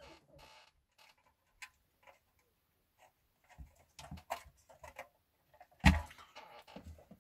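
Light clicks and taps of thin wire tent hoops being handled and pushed into the sides of a model GAZ-66 truck's cargo bed, with a louder knock about six seconds in.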